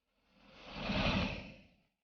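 A single whoosh of noise that swells up to a peak about a second in and fades away just before the end.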